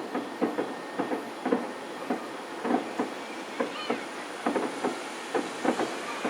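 Distant fireworks shells bursting in a rapid, irregular barrage of dull pops and thuds, several a second, heard from a few kilometres away.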